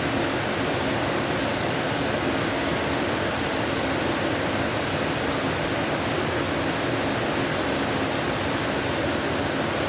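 Heavy monsoon rain pouring steadily, an even hiss, with the rush of a muddy, flooded stream beneath it.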